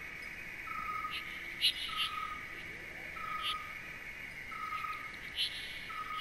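Nature ambience: a steady high chirring like insects, a short whistled call repeated about every second and a half, and scattered brief higher bird chirps.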